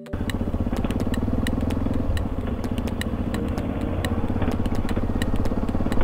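Motorcycle engine running as the bike rolls along slowly, a steady low rumble with road and wind noise, and sharp ticks scattered through it. It starts suddenly right at the beginning, cut in after quiet.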